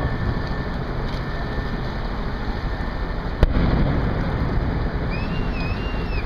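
Steady rumbling wind and water noise on the microphone, with a single sharp crack about halfway through. Near the end a high whistle sounds, rising, dipping once and falling away.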